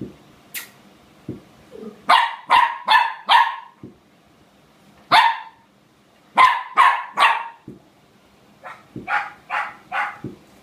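Puppy play-barking: about a dozen short, sharp barks in quick bunches (four, then one, then three, then four softer ones near the end).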